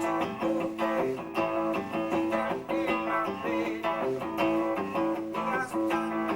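Live rock band led by electric guitar, playing an instrumental passage of chords and held notes over a steady beat.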